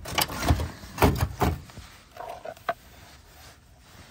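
Plastic RV jack pads being handled and set down on the grass under a pop-up camper's stabilizer jack, with knocks and rustling. The loudest knocks come in the first second and a half, then it quietens.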